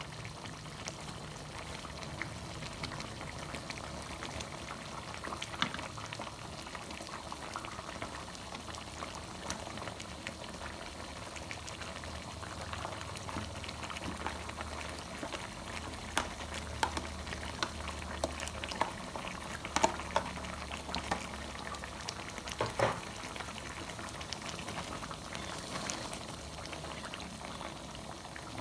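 Kalio curry sauce simmering in a wok, with a steady hiss and a scatter of small bubbling pops. A few sharper clicks and knocks come in the second half as jengkol pieces go into the pan and a spatula moves through it.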